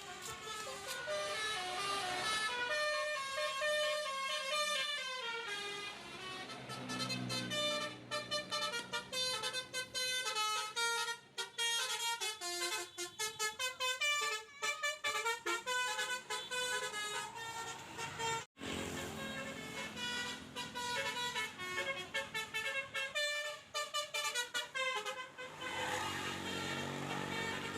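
Bus 'telolet' musical air horn of the Basuri type playing a quick melody of stepping notes, with a brief break about eighteen seconds in.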